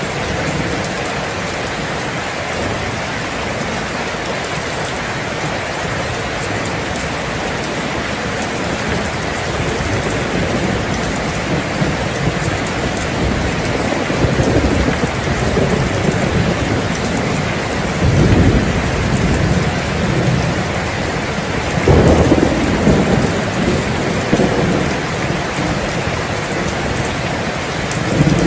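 Heavy rain falling steadily, with thunder rolling in about halfway through; the loudest rumbles come twice, about two-thirds of the way in, and a shorter one near the end.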